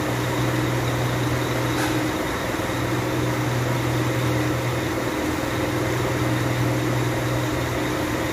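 A steady low machine hum under a constant hiss, with a faint click about two seconds in.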